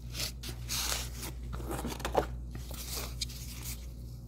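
Cardboard and paper packaging rustling and scraping in the hands as a boxed in-ear monitor case is pulled out by its ribbon tab, in a series of irregular short rustles.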